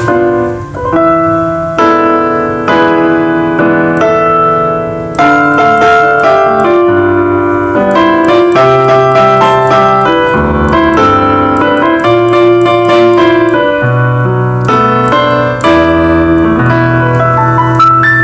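Korg SP-250 digital piano playing a slow melody over chords and low bass notes.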